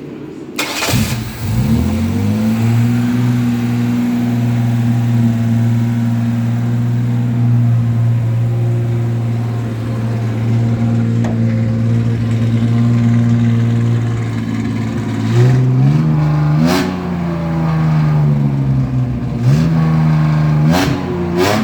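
A 3.4-litre V6 in a Chevette, heard through a newly fitted true dual exhaust, starts about a second in and idles steadily. In the last seven seconds it is revved in several short blips. The exhaust is a little louder than the owner wanted.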